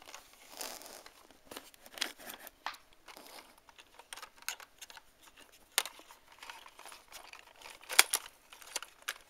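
Handling noise of plastic toys: scattered clicks, taps and short rustles as toy figurines and a plastic toy car are moved, with the sharpest click about eight seconds in.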